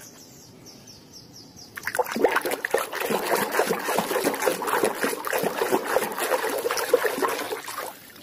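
Hand swishing and sloshing plastic toy animals through a basin of muddy water to wash them. The splashing starts about two seconds in and stops just before the end.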